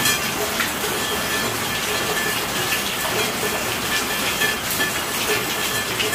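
Steady rainfall, a dense even hiss of rain with scattered individual drop impacts ticking through it.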